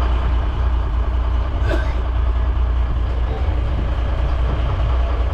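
Boat engine running steadily on a dhoni under way, a constant low drone with rushing noise over it.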